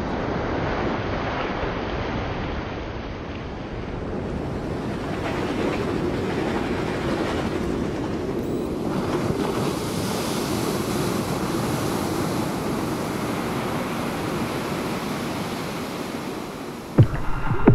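Ocean surf breaking and washing up on a beach: a steady wash of wave noise that swells and eases. A sudden loud hit cuts in near the end.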